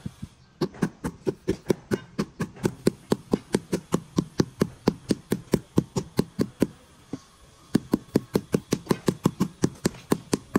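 White rubber mallet tapping a marble slab down into its fresh mortar bed to set it level. Quick, even blows at about four or five a second, with a short pause about seven seconds in.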